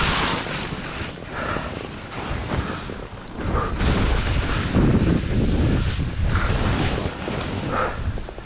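Skis carving short turns down steep snow, each turn a surge of hissing, scraping snow spray, with wind buffeting the microphone.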